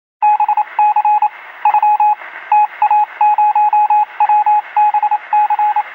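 Electronic beeping sound effect: a single-pitched beep pulsing in quick, irregular groups, Morse-code-like, over a steady hiss with a thin, radio-like sound.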